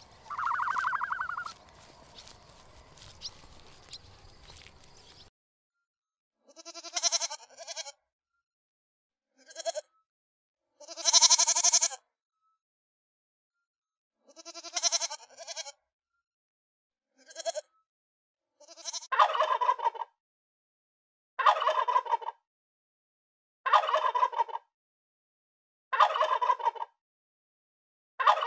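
Faint outdoor ambience with one short call about a second in, then young goats bleating several times. A wild turkey tom then gobbles five times, about every two and a half seconds.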